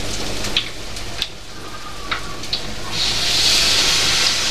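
Hot oil sizzling in a wok as battered tempeh (mendoan) fries, with scattered sharp crackling pops. About three seconds in the sizzle swells to a loud hiss as another batter-coated slice goes into the oil.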